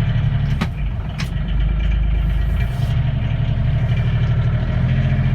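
Engine of a John Deere Gator utility vehicle running steadily as it is driven and turned, with two short knocks in the first second or so.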